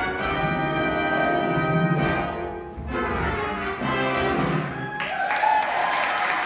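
Orchestral music with brass playing the closing chords of a musical, with a brief dip near the middle; about five seconds in, audience applause breaks out over the final held note.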